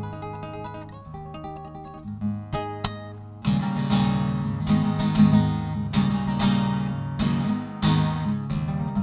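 Live band playing an instrumental passage with no singing: a plucked-string melody over bass notes, then about three and a half seconds in the full band comes in louder, with strummed strings and sharp percussion hits.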